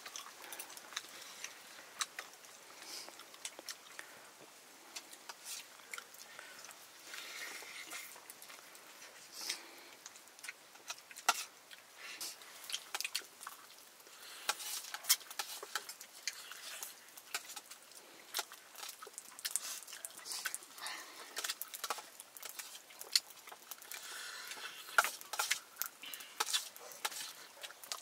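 People eating: chewing with many small, irregular clicks and taps.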